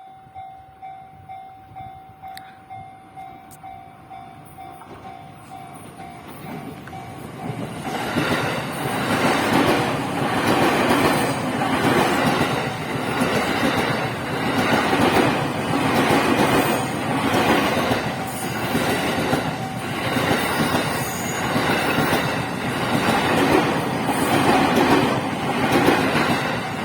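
Level crossing warning bell ringing in a steady beat about twice a second. About eight seconds in, a JR East 217 series electric train passes close by and drowns it out, its wheels clattering rhythmically over the rail joints.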